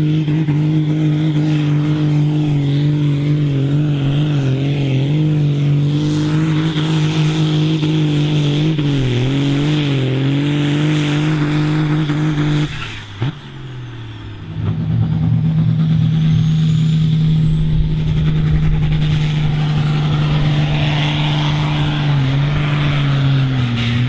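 Modified pulling tractor engines at high revs under full load, dragging the weight sled, each with a steady high note that wavers slightly. About 13 s in the first engine cuts off abruptly. After a second or so of lower sound, a second tractor's engine runs steadily at high revs, and its pitch falls near the end.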